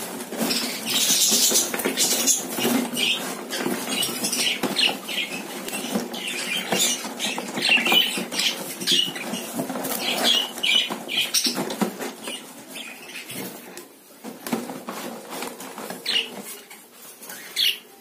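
King-size budgerigars fluttering and scrabbling inside a small wire cage, with wings beating against the wire and short chirps. The commotion thins out and grows quieter about two-thirds of the way through.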